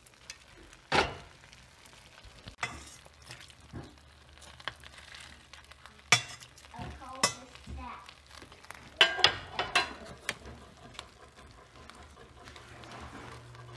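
Ladle stirring and scooping vegetable soup in a slow cooker and knocking against the pot and a ceramic bowl: scattered clinks and knocks, with a quick cluster of sharp ones about nine seconds in.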